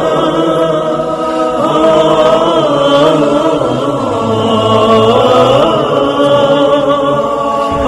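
Unaccompanied religious vocal chanting in the style of an Islamic nasheed, with long held notes that glide slowly up and down.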